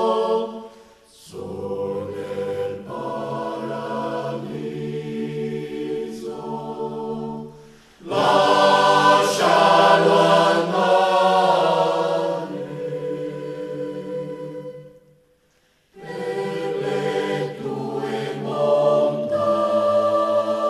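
Choir singing unaccompanied in slow, sustained chords, phrase by phrase. It breaks off between phrases about one, eight and fifteen seconds in, the last with a second of silence.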